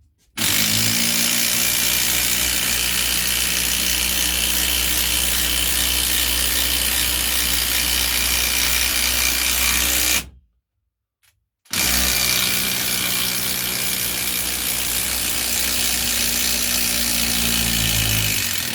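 Cordless brushless impact driver hammering a large coach screw into oak, in a long steady run of about ten seconds, a short pause, then a second run of about seven seconds. The screw drives home without snapping.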